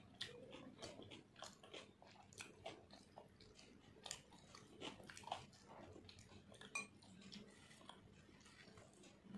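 Faint close-up eating sounds: fingers tearing fried luchi and scooping oily mutton fat curry from a glass bowl, with scattered small wet clicks of chewing.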